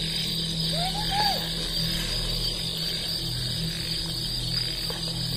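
Crickets chirping steadily at night over a low steady hum, with two short rising-and-falling calls about a second in.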